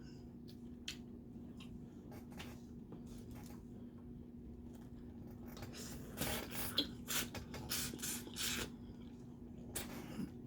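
Crawfish being peeled and eaten close to the microphone: shells cracking and wet sucking, slurping noises, most of them in a run of short sounds about six to nine seconds in, over a faint steady hum.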